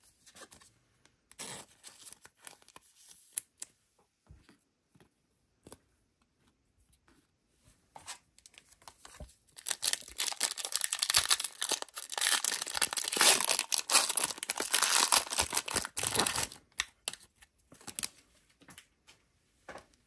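Foil wrapper of an Upper Deck AEW trading card pack being torn open and crinkled: a long run of loud crackling about halfway through, lasting around seven seconds. Before it, scattered soft taps and rustles.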